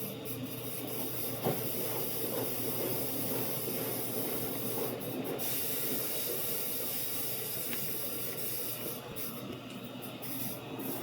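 Samsung AddWash washing machine filling with water: a steady hiss of water running into the machine.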